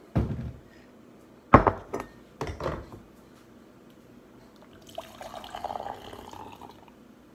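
A few sharp knocks as a kitchen cabinet is handled and a ceramic mug is set down on a granite countertop, the loudest about a second and a half in. Then, about five seconds in, coffee is poured from a coffee maker's carafe into the mug for nearly two seconds.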